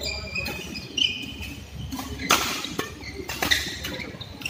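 Badminton rally: rackets striking the shuttlecock in three sharp hits, the loudest in the middle, with shoes squeaking on the court surface during the first second.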